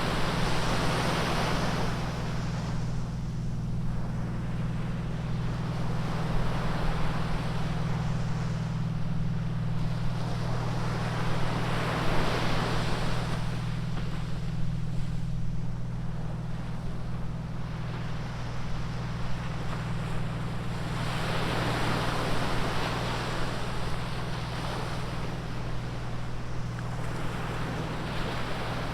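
Atlantic surf breaking on a beach: waves crash and wash, swelling about every ten seconds, over a steady low rumble.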